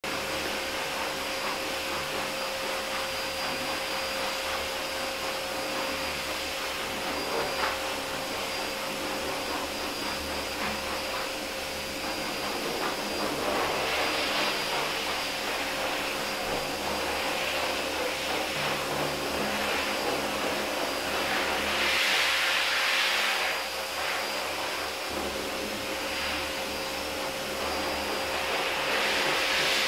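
A steady machine hum with a constant whine runs throughout. Over it, the rubbing and squelching of a gloved hand scrubbing a dog's soapy, lathered coat comes and goes, loudest about three-quarters of the way in.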